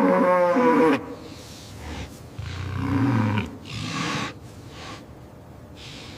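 Farm animals calling: a long, loud call at the start, then a lower, shorter call about two and a half seconds in, with gusts of wind-like noise after it.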